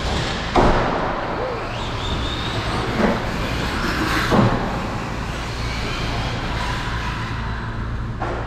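Radio-controlled cars driving on a track, their motors whining over a steady low hum, with three sharp knocks of the cars hitting the track about half a second, three and four seconds in.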